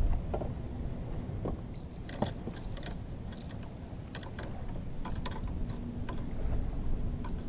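Scattered small clicks and rustles from hands handling a small live bait fish and a hook while it is hooked through the back, over a steady low rumble.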